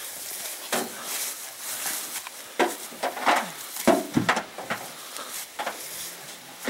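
Bumps, knocks and rustling as a dead whitetail buck is hoisted and shoved into a pickup truck bed, with a few short straining grunts in the middle of the lift.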